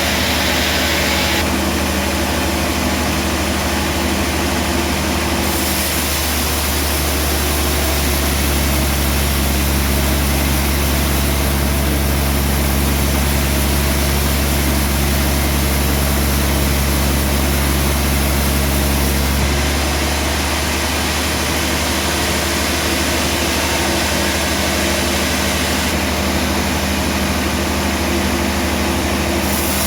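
Sawmill engine running steadily, with its low hum growing stronger for a stretch in the middle.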